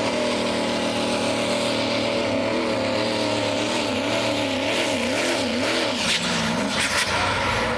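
Diesel 4x4 pickup truck pulling a sled at full throttle, its engine running hard and steady. The engine's pitch wavers up and down through the middle of the pull.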